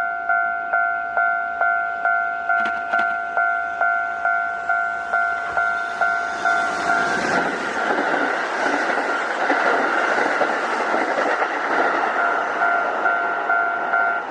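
A Japanese railway level-crossing warning bell dings steadily about twice a second. About seven seconds in, a Kintetsu Osaka Line electric train passes over the crossing, its wheels on the rails the loudest sound for about seven seconds, with the bell still ringing under it and heard clearly again near the end.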